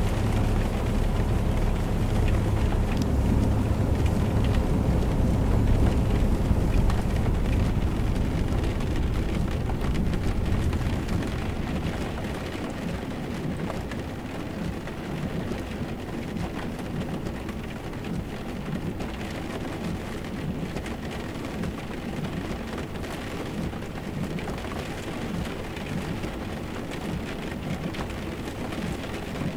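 Steady rushing, rumbling noise with no tune or voices, heavy in the low end, which eases and grows lighter about twelve seconds in and then holds steady.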